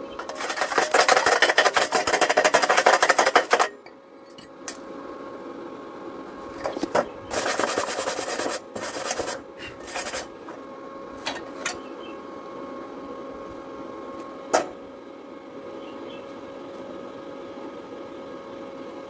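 Steel wire brush scrubbing slag off a fresh stick weld on thin steel square tube, in two bouts of fast strokes: a longer, louder one in the first few seconds and a shorter one about seven seconds in. A single sharp knock comes near the end, over a steady faint hum.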